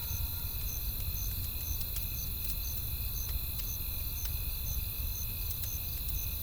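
Crickets chirping steadily about twice a second over a high insect hum, with scattered sharp pops of a crackling wood fire and a low rumble underneath.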